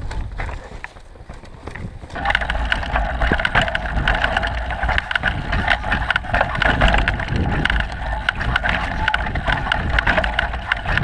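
Downhill mountain bike ridden over a rough dirt and rock trail: wind rumble on the microphone, then about two seconds in a dense, continuous rattle and clatter of the bike and its tyres over roots and rocks sets in.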